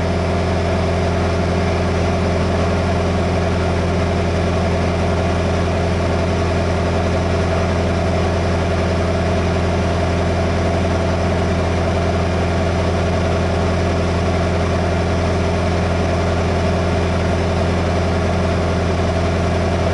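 Heavy truck's diesel engine idling steadily, a constant low hum that holds the same pitch throughout.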